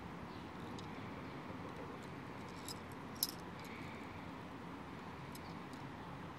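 A few light metallic clicks, the loudest about three seconds in, over a steady faint hiss: the loose steel weight balls knocking about in the slots of a brass fidget spinner as it is tilted in the hand.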